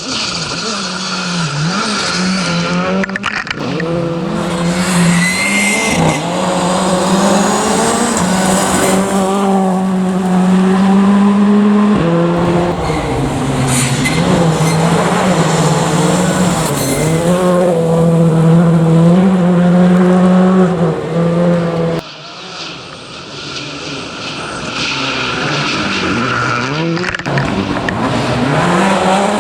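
Rally cars at speed on a special stage, engines revving hard with the pitch climbing and dropping through gear changes as they pass. The sound switches abruptly a few times from one car to the next.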